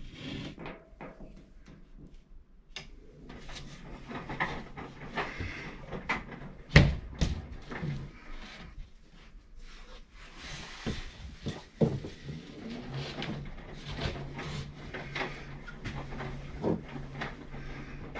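Scattered knocks, scrapes and bumps of a drywall panel being handled and fitted into a wall opening, with one loud sharp knock about seven seconds in.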